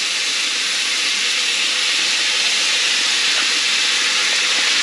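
Steady hiss of greens steaming in a wok on a wood-fire clay stove.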